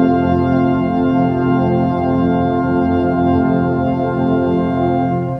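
Brass band of trombones, euphoniums and tubas holding a long sustained chord, cut off sharply near the end and leaving a short ring of reverberation.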